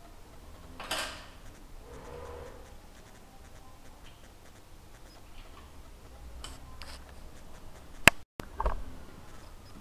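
Small metal clicks and taps as boring-bar tooling is handled and set against the cylinder boring machine's steel table, with a scrape about a second in and a sharp click followed by a thump near the end.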